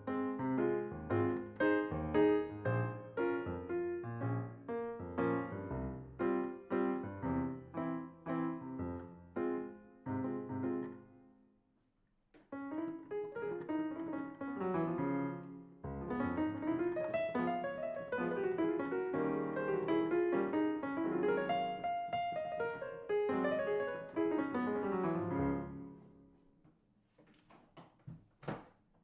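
Electronic keyboard played with a piano sound: rhythmic repeated chords, a short break about twelve seconds in, then a flowing passage of notes that dies away near the end. A few faint clicks follow.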